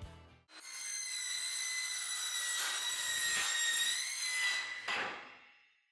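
Cordless Milwaukee Fuel metal-cutting circular saw spinning up and cutting through a steel drywall stud profile: a high steady whine over a rasping cut, starting about half a second in and winding down to a stop about five seconds in.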